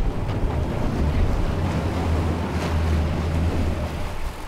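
Water rushing and splashing along the hull of a boat under way, with wind buffeting the microphone over the low steady hum of its outboard engines. It eases off a little near the end.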